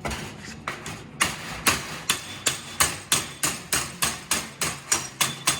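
Hand hammering on metal: steady, evenly spaced blows at about three a second, starting about a second in.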